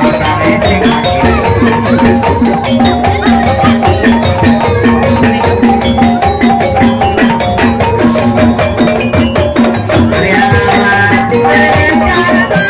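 Banyumasan gamelan music accompanying ebeg trance dancing: a fast, steady drum beat over a repeating melody on tuned percussion. Brighter, higher sounds join about ten seconds in.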